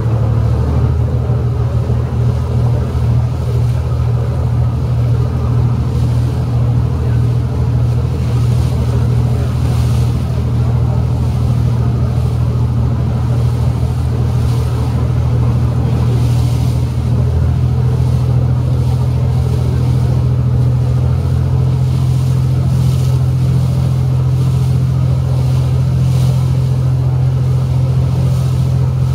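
Passenger ferry's engine running steadily under way, a loud, even low drone with the rush of wind and water over it.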